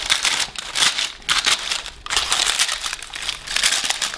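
Baking parchment crinkling and rustling as freshly baked ciabatta loaves are lifted and shifted on it, in a run of bursts with short gaps between them.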